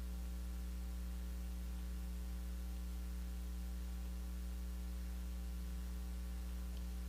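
Steady low electrical mains hum with a faint hiss, picked up through the microphone and sound system, unchanging throughout.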